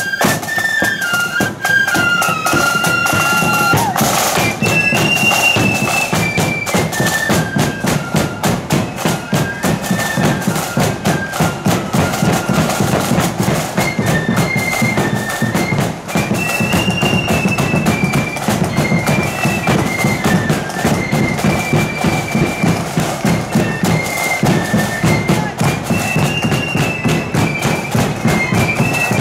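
Marching flute band: many flutes playing a high melody in unison over steady snare and bass drums beating a march rhythm.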